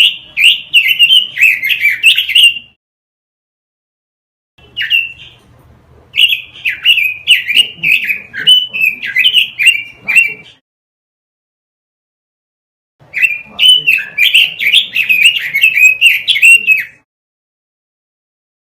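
Pekin robin (red-billed leiothrix) singing: three bouts of rapid, warbling whistled phrases, each a few seconds long, with pauses of about two seconds between them.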